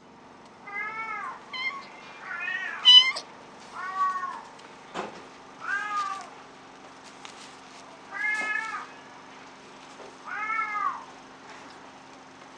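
Kitten meowing repeatedly: about seven short meows that rise and fall in pitch, a second or two apart, the loudest a brief shrill squeak about three seconds in.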